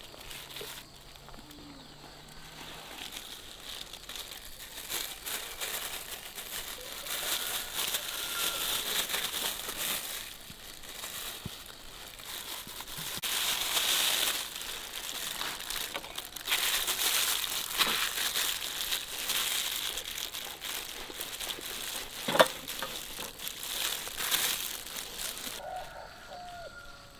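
Uneven crinkling and rustling that comes and goes over some twenty seconds, with one sharp click about 22 seconds in.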